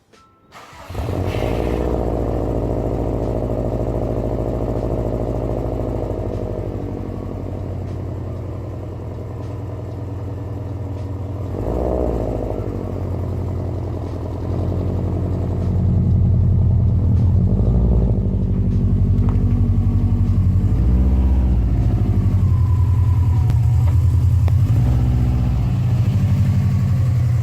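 Subaru STi's turbocharged flat-four engine starting about a second in and idling, then moved at low revs, its note rising and falling a few times and growing louder in the second half.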